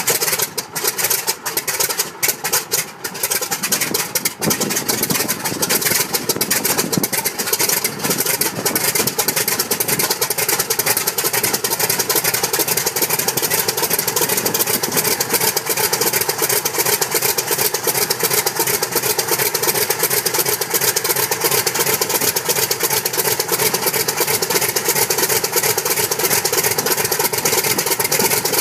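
The Corsair's Pratt & Whitney R-2800 eighteen-cylinder radial engine fires up and runs unevenly for the first few seconds, with stumbles and pops. It then settles into a steady, loud idle as the propeller turns.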